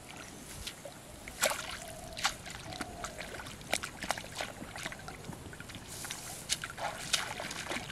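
Irregular small splashes and sloshes of muddy pond water where a fish is pulled in on a rod and line, thrashing at the surface.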